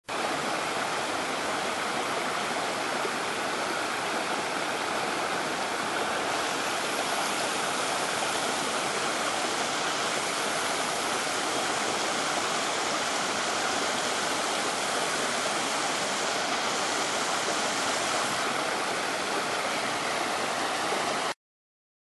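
A small rocky creek cascading over boulders, a steady rush and splash of water that cuts off suddenly near the end.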